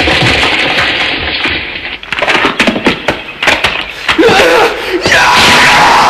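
Anime sound effects: a loud rushing roar, then a run of sharp crackles starting about two seconds in, with the roar building again near the end.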